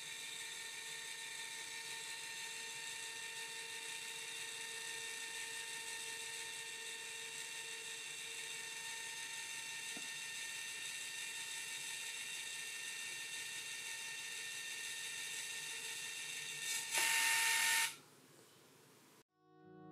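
Canon iNSPiC mini photo printer whirring steadily as it prints and feeds a ZINK photo out of its slot. The whir gets louder for about a second near the end and then stops.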